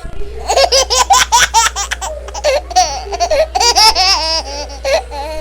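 A young child laughing and squealing, loud and high-pitched, in quick repeated peals.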